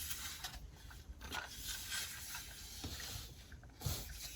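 A few soft knocks and faint rustling, as of a plastic LEGO model being handled, over a faint hiss; the clearest knock comes near the end.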